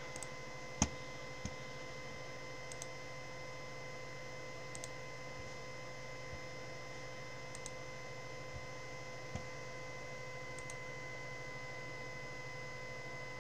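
Sparse, scattered clicks of a computer mouse and keyboard, the sharpest about a second in, over a steady hum with a thin whine.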